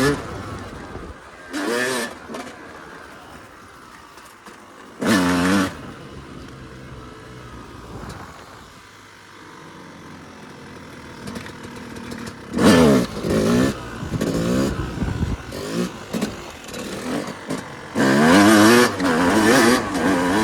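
Yamaha YZ250 two-stroke dirt bike engine revving in repeated short bursts of throttle, its pitch wavering up and down. Between the bursts it runs lower and quieter.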